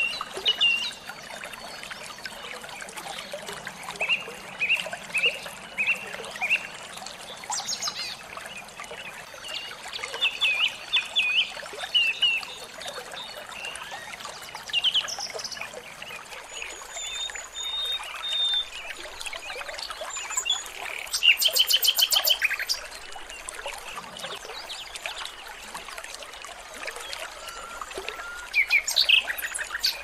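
Small songbirds calling: runs of short, high chirps, and about two-thirds of the way through a fast rattling trill that is the loudest part, over the steady trickle of running water.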